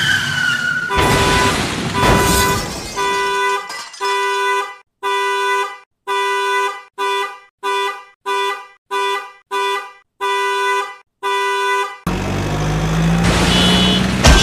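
Cartoon sound-effect car horn honking over and over in separate blasts, coming faster in the middle. A falling squeal and a burst of noise open it, and about twelve seconds in a loud rushing noise with a low hum takes over.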